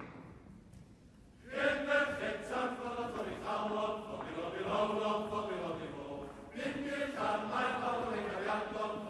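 Male voice choir singing, entering about a second and a half in, with a short break about two-thirds of the way through before the voices come back in.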